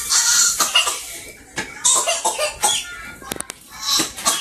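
A man's voice: short coughs and a few brief murmured sounds without clear words.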